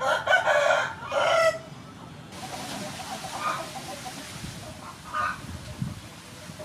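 A rooster crowing: a loud call in two parts in the first second and a half, followed by fainter, shorter calls about three and a half and five seconds in.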